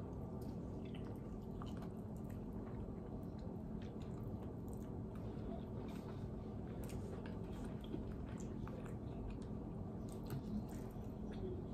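A person chewing chicken wings close to the microphone: many small wet smacks and clicks of mouth and meat, over a steady low hum.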